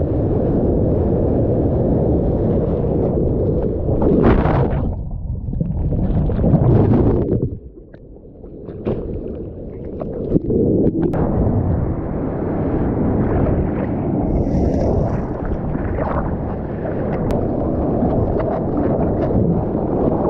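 Surf and whitewater rushing and splashing around a GoPro camera in the waves, with wind buffeting the microphone. A little after seven seconds in the rush drops away and goes muffled for about a second before the splashing picks up again.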